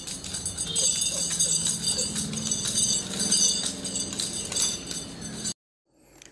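Background music that cuts off suddenly about five and a half seconds in.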